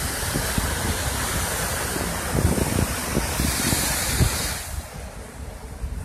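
Ocean surf breaking and washing over shoreline rocks, a steady hiss of whitewater that eases off near the end. Wind buffets the microphone with low rumbles throughout.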